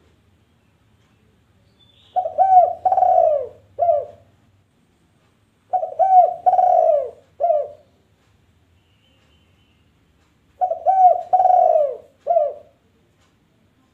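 Dove cooing: three phrases, each of a few low coos with one longer drawn-out note, a few seconds apart.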